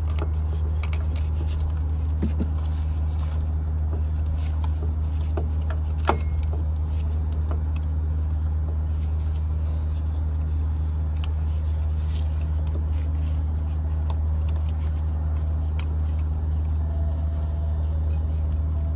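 A steady low drone runs throughout, with light metallic clicks and clinks of bolts and tools being handled as an AC compressor is fitted, and one sharper click about six seconds in.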